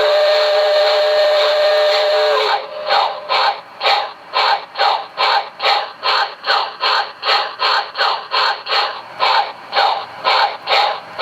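QSI Maxx Traxx small-steam sound effects from a model-train sound unit: a steam whistle blows for about two and a half seconds, then the steam locomotive's exhaust chuffs evenly, a little over two chuffs a second, as if running.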